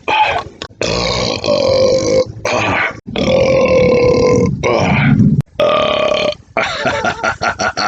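A man belching a string of long, loud burps one after another, brought up by a can of Budweiser beer he has just finished; the last one breaks into a quick choppy stutter near the end.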